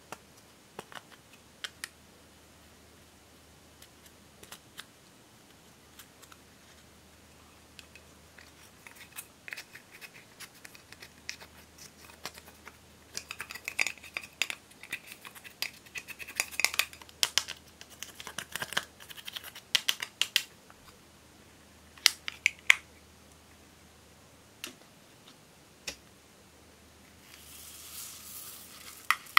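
A plastic ball-tipped tool scrapes and taps pressed eyeshadow out of a plastic compact in scattered scratchy clicks, which come thick and fast in the middle. Near the end, a jar of small foam beads is poured into a glass bowl with a soft rushing hiss.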